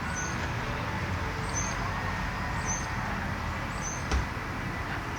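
A small bird chirping: short high notes about once every second or so, over a steady low background rumble. A single soft knock sounds about four seconds in.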